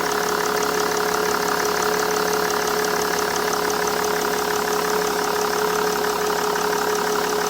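Mercedes E320 W211 engine idling steadily after its new serpentine belt has been fitted with the air conditioning compressor bypassed, with a steady whining tone over the engine.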